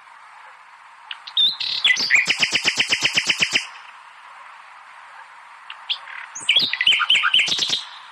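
A bird singing two phrases of rapid, evenly repeated chirping notes, the first starting about a second and a half in, the second near the six-second mark, over a faint steady hiss.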